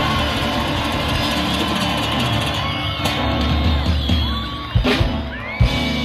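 Live band music led by acoustic guitars, over bass, drums and keyboard. Two sharp knocks sound about five seconds in and just before the end.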